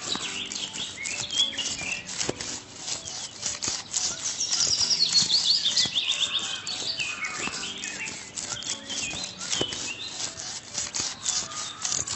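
Birds chirping over a repeated rasping scrape of sawing, as a small metal two-man crosscut saw is worked back and forth.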